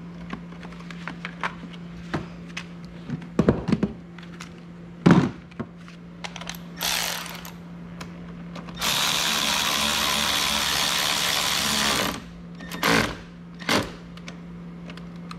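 Scattered clicks and knocks of hand tools on metal, then a handheld power tool runs steadily for about three seconds, fastening the ECU ground connection.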